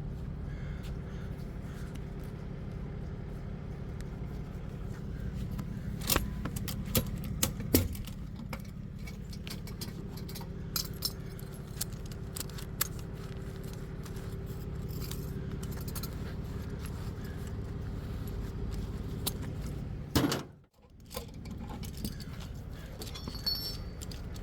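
A vehicle engine running steadily, with scattered metallic jingling and clicking over it. About twenty seconds in there is a short louder burst, then the sound drops away for a moment before the engine hum returns.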